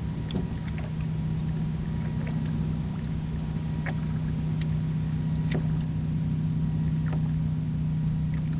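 Steady low hum of a boat motor, with a few faint scattered clicks.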